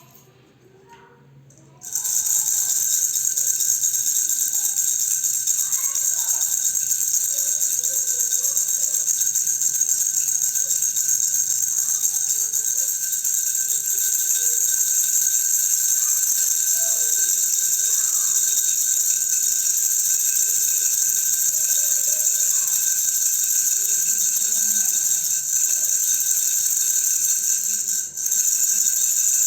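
Baby's toy rattle (khulkhula) shaken rapidly and without pause, starting about two seconds in: a dense, steady, high-pitched rattling with a brief break near the end.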